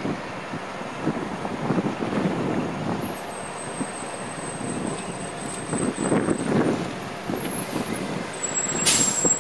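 City transit bus approaching and turning close past, its engine rumbling unevenly. Near the end comes a short, sharp hiss of air from the bus's air brakes.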